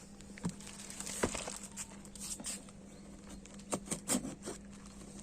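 Packaging being handled during an unboxing: scattered light taps, clicks and rustles at irregular intervals, over a faint steady hum.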